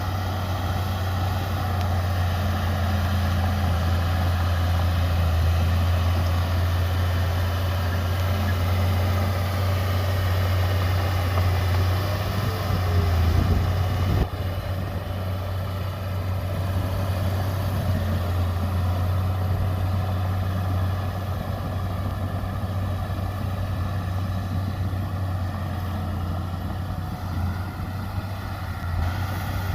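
Heavy diesel earthmoving machinery running steadily with a deep engine drone, swelling briefly and then changing abruptly about halfway through.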